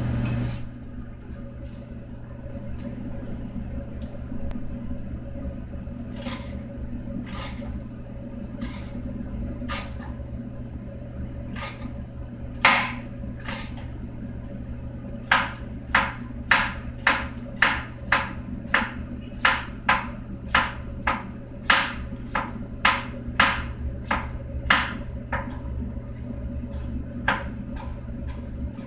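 Pork frying in a skillet with sharp crackling pops of spitting fat, sparse at first, then coming about one and a half a second for a stretch in the second half, over a steady low hum.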